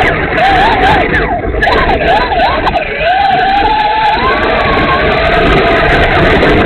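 Traxxas Slash RC truck's electric motor and gears whining, the pitch rising and falling quickly as the throttle is worked, over a loud rattling rush of tyres and chassis on snowy slush, heard from a camera mounted on the truck.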